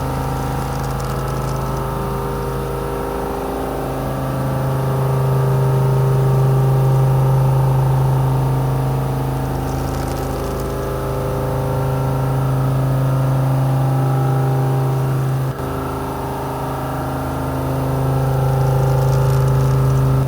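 Tungaloy high-feed milling cutter spiral-milling a billet in a Duggard CNC machining centre: a steady, loud machining hum with a strong low tone that swells and eases as the cut goes round, with a brief dip about fifteen seconds in.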